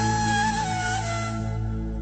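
Background music: a held, slightly gliding melody over a steady low drone, with the higher part fading out about one and a half seconds in.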